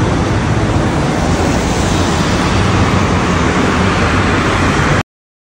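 Steady rush of city street traffic passing a crossing, with wind buffeting the microphone. It cuts off suddenly about five seconds in.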